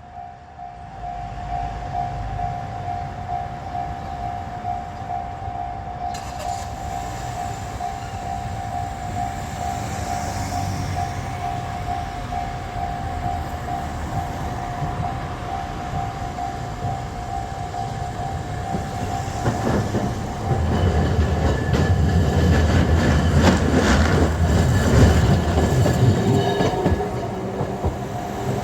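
Level-crossing warning bell ringing in a steady repeating pulse while Kagoshima City streetcars pass over the crossing; from about twenty seconds in, a tram rolls across loudly, its wheels rumbling and clacking over the rail joints and crossing, then fading.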